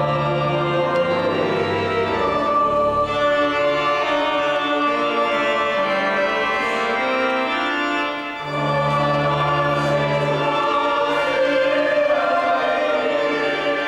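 Church organ playing held chords with a choir singing, the chords changing every second or two, with a brief lull about eight seconds in.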